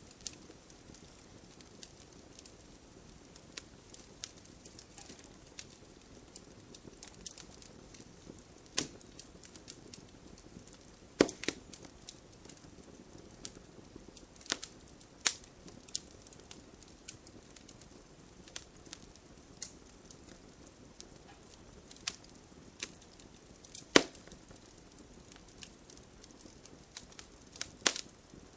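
Wood bonfire crackling, with many small irregular snaps and a handful of sharper, louder pops, about half a dozen across the stretch. A faint steady rain hiss runs underneath.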